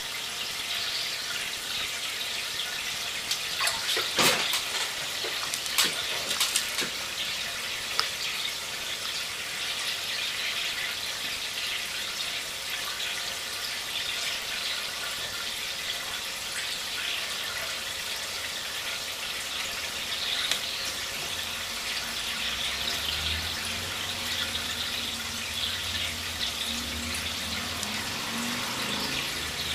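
Steady trickling and splashing of water, typical of an aquarium filter returning water to the tank. A few sharp clicks come between about three and eight seconds in, and a low hum joins about twenty-three seconds in.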